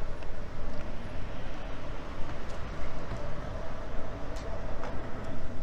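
Busy city street: road traffic running steadily, with a faint steady hum and a few faint ticks.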